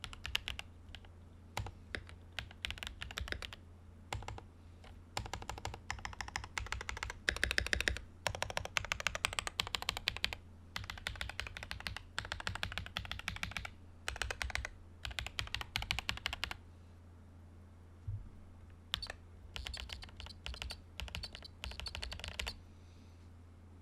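Typing on a Command 65 prototype mechanical keyboard with Sotc switches, a POM plate and Domikey keycaps: rapid key clacks in bursts separated by short pauses, with a longer pause about 17 seconds in. A steady low hum runs underneath.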